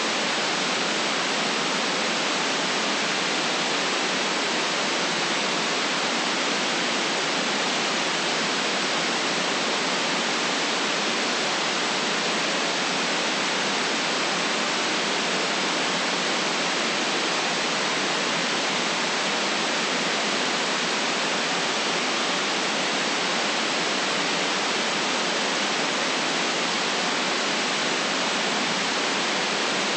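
Steady, unchanging white-noise hiss, a synthetic sleep noise cut off sharply below about 150 Hz and above about 9 kHz.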